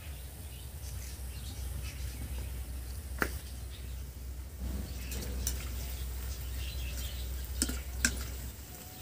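Palm-fruit fritters (tal fuluri) frying in hot oil, bubbling and crackling steadily over a low hum, with three sharp clicks about three seconds in and twice near the end.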